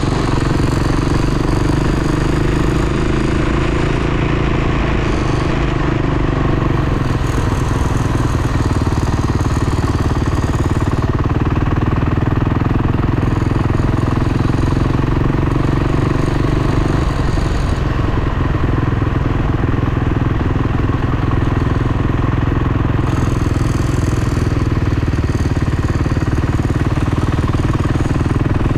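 Off-road dirt bike engine running at a fairly even throttle without pause, its note changing about two-thirds of the way through.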